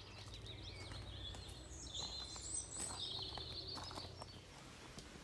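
Songbirds chirping and warbling in short phrases over a steady low rumble.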